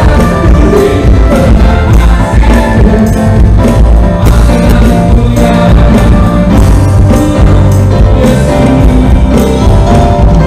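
Live worship band playing: electronic keyboard with a drum kit and bass, the drums keeping a steady beat.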